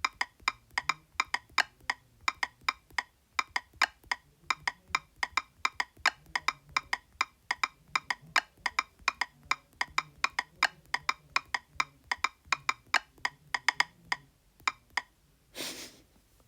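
A phone's on-screen keyboard key-press clicks, tapped rapidly in a rhythm to try to make a tune, about five clicks a second. The clicks stop about a second and a half before the end, followed by a short rush of noise.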